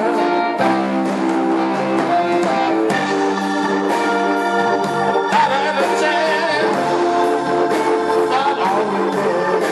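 Live electric blues band playing a slow song: electric guitar, organ chords and drums, with a man's singing voice.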